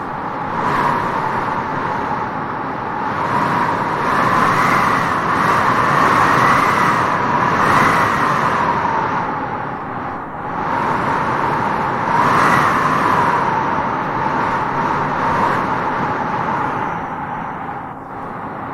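Wind gusting across open grassland, a steady rushing that swells in two stronger gusts, one in the first half and one past the middle, with grass rustling in it.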